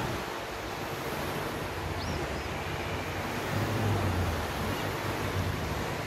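Small waves breaking and washing up on a sandy beach, with wind rumbling on the microphone; the low rumble swells for about a second near the middle.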